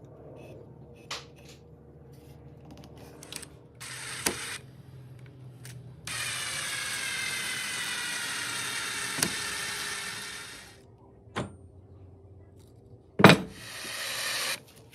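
Woodworking tool sounds: a power tool runs steadily for about four and a half seconds, set among scattered clicks and handling knocks, with one sharp loud knock near the end followed by a short burst of noise.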